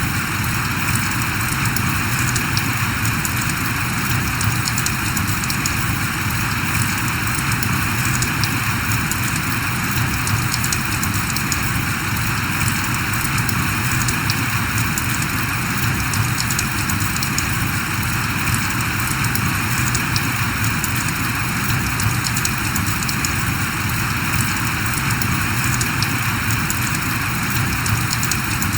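Steady rain falling: a dense, even hiss of rain with many small drop ticks, unchanging throughout.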